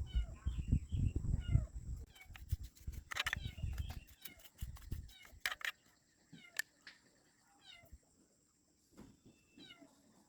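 Repeated short, high chirping animal calls, several a second in places, over low thumps in the first few seconds and a handful of sharp clicks near the middle.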